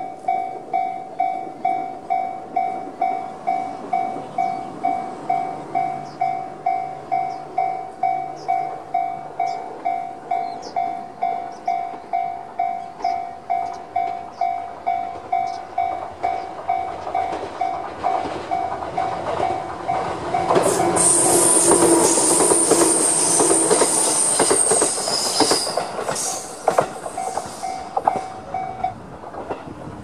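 Japanese railway crossing alarm with the JR standard electronic bell sound, ringing about twice a second. A JR 211-series electric train passes through the crossing, its wheels clattering over the rail joints with a high squeal. The passing train is loudest midway, and the alarm stops near the end.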